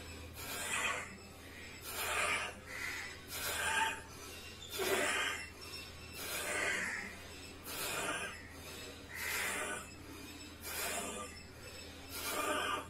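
A man breathing forcefully in and out through his nose with a hand pressed over it, as a yoga breathing exercise. Each rushing breath lasts under a second and comes about every one and a half seconds.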